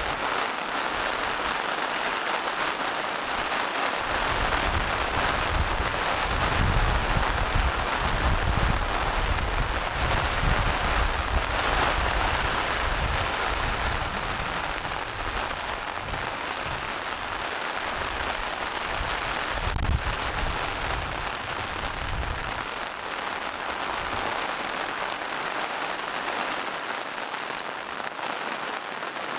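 Steady rain falling in a forest. A low rumble joins it from about four seconds in and fades out about twenty-two seconds in.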